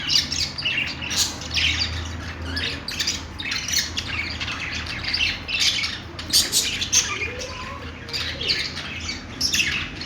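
Budgerigars chattering and chirping continuously, a dense run of short, overlapping calls with occasional squawks.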